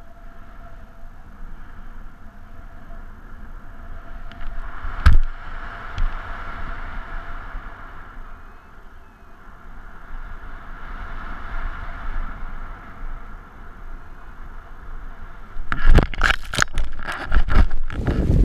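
Wind rushing over a camera microphone on a paraglider pilot in flight, with one sharp knock about five seconds in. Near the end, loud rough buffeting and rustling as the pilot comes down to the ground.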